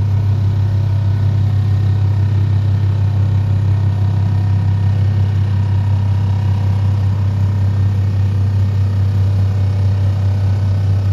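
Excavator-mounted DPD350T vibro hammer running at steady speed, a constant loud low hum, as it vibrates a steel sheet pile into the ground.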